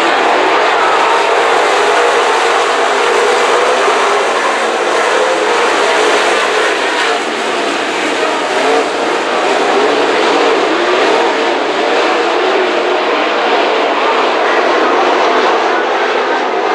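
A pack of dirt late model race cars' V8 engines running hard at racing speed, a loud steady drone without let-up.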